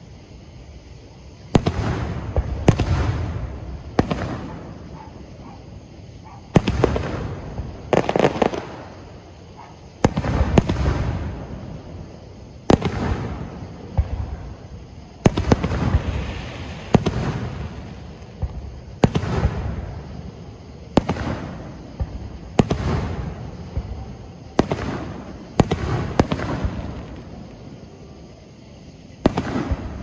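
Aerial fireworks shells bursting one after another, about eighteen sharp bangs spaced one to two seconds apart. Each bang is followed by a low rumbling echo that dies away.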